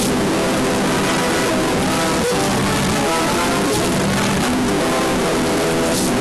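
Music in G major played backwards, held tones at several pitches buried under a loud, steady static hiss.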